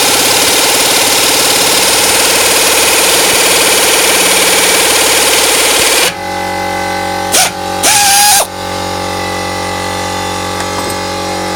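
Pneumatic nibbler punching its way through sheet steel, a loud, fast, continuous chatter that stops abruptly about six seconds in. A quieter steady machine hum remains, with two short bursts about a second apart.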